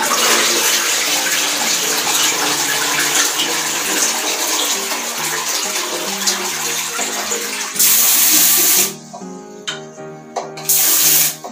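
Toilet being flushed: water rushing into the bowl for about eight seconds, then two short, loud hissing gushes near the end.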